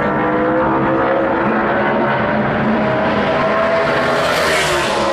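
NASCAR Sprint Cup car's V8 engine running at speed on a qualifying lap as it approaches and passes close by. Its note climbs slowly, turns brighter about four and a half seconds in, then drops in pitch as the car goes past.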